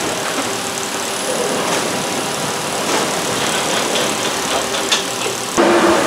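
Palletizer running with a steady mechanical whir and rattle as its layer head handles a layer of plastic water jugs, with a short knock about five seconds in. The sound turns louder near the end.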